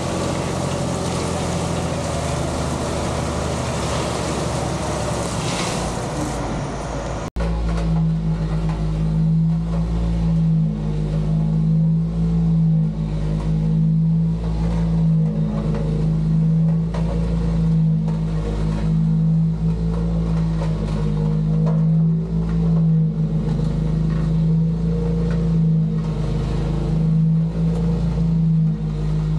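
Heavy equipment engine running under load while working gravel. About seven seconds in, an edit cut gives way to a steady engine drone that swells and eases in a regular rhythm.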